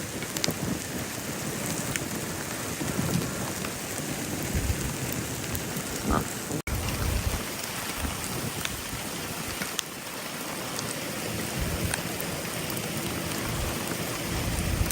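Heavy rain pattering steadily, with scattered sharp drop ticks and intermittent low rumbles. The sound drops out briefly about six and a half seconds in.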